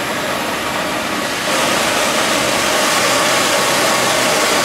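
Oxy-fuel cutting torch flame hissing steadily. It grows louder and brighter about a second and a half in as the torch's gas valve is turned up.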